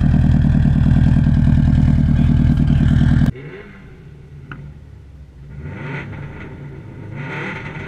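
2004 Subaru WRX rally car's turbocharged flat-four running loud and steady, heard from close behind the car. About three seconds in the sound cuts to inside the cabin, much quieter, where the engine rises in pitch twice as the car accelerates away.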